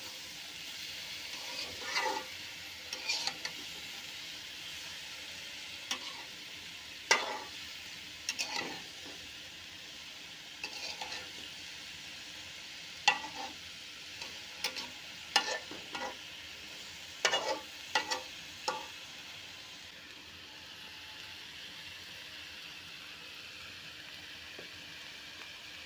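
Food frying in a pan, with a steady sizzle. A spatula stirs it with irregular scrapes and clacks against the pan, which stop about three-quarters of the way through, leaving only the sizzle.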